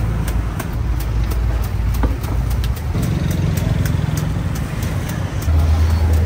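A steady low mechanical hum, like an idling engine, that shifts pitch a few times, with light clicks and clinks scattered through it.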